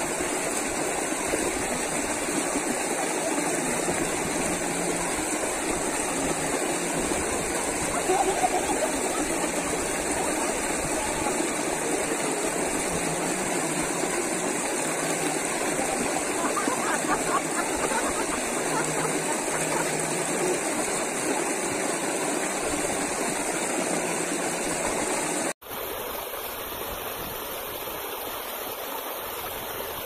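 Stream water running over rocks close by, a steady rush of flowing water. About 25 seconds in it cuts out for an instant and comes back a little quieter.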